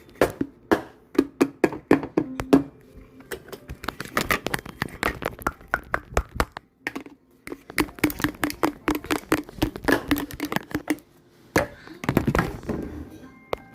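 Rapid, irregular taps and knocks in quick runs, each with a short hollow ring, as of objects being tapped or handled on a hard surface.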